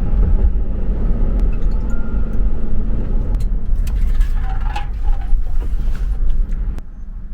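Steady low rumble of a car on the move, heard from inside, with a few scattered clicks and light rattles; the rumble falls away shortly before the end.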